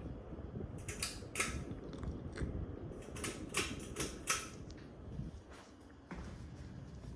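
Harbor Breeze Armitage ceiling fan running, a low steady rumble of moving air, with a string of sharp clicks and rattles in the middle.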